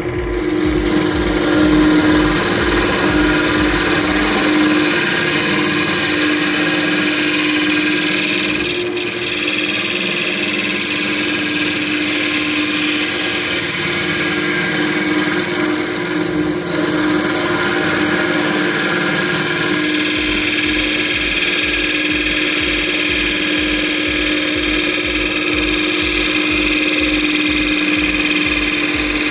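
Wood lathe running with a steady motor hum while a turning tool cuts a spalted beech bowl, giving a continuous hiss of shaving wood. A low rhythmic pulse fades out early on a stretch and comes back about two-thirds of the way through.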